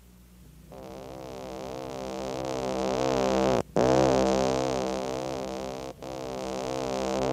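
Start of a music track: a sustained electronic keyboard chord with a fast pulsing tremolo, swelling louder, cut off for an instant twice and swelling again. A faint low hum comes just before it.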